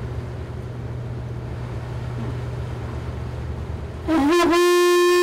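Low steady hum of a motor boat under way, then about four seconds in a conch shell is blown: a loud horn note that wavers briefly as it starts, then holds on one pitch.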